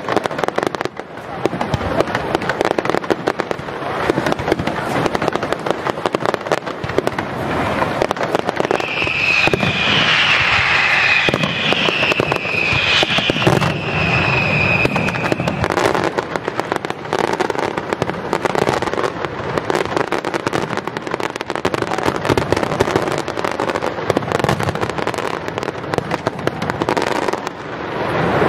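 New Year fireworks display: a dense, continuous run of bangs and crackling bursts. For several seconds in the middle a high steady whistle sounds over the bangs.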